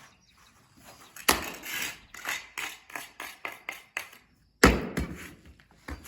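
Concrete finishing hand tools knocking and scraping on a slab: two loud, sharp knocks about a second and nearly five seconds in, with a run of shorter strokes, about three a second, between them.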